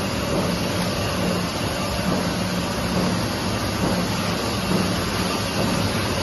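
Sakurai five-colour offset printing press with an anilox coating unit running in production: a steady mechanical din with a low hum that pulses in a regular rhythm.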